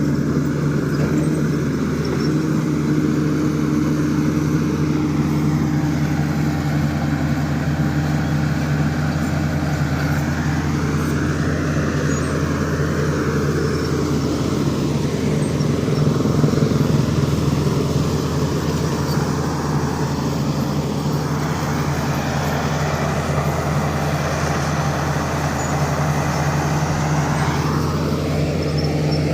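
Diesel engine of a heavy earthmoving machine running at a steady speed, a continuous low hum that holds all through.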